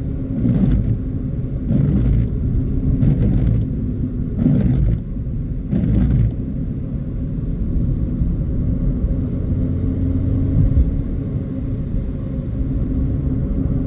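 Road noise inside a moving car's cabin: a steady low rumble of engine and tyres. Five brief swishes come at an even pace, about one every 1.3 seconds, in the first six seconds, then the rumble carries on alone.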